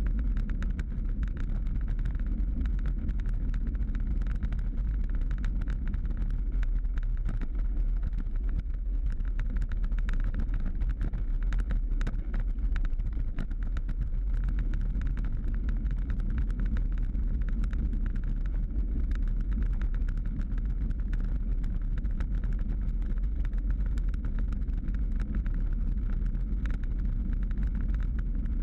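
Steady rumble of wind and road vibration picked up by a bicycle-mounted action camera riding over cracked asphalt, with constant small clicks and rattles from the rough surface.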